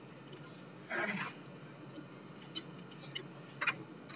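Light clicks and taps from the plastic housing parts of a disassembled hair trimmer being handled: a short rustle about a second in, then a few sharp clicks in the second half.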